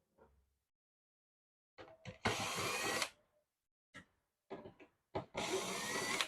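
Electric screwdriver running in two bursts of about a second each, its motor whine rising through each burst, with a few short clicks before each one: screws being driven out during the monitor's disassembly.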